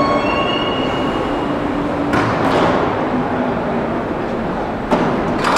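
Metro train coming to a halt at the platform, its whining electric motors fading out within the first second over a steady rumble. Short sharp hissing bursts follow about two seconds in and twice near the end.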